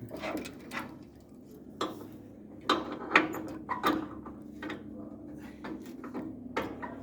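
Irregular metallic clanks and knocks, some eight or nine over several seconds, from the metal frame and hardware of floating dock steps being worked down into position, with the steps hanging up as they go.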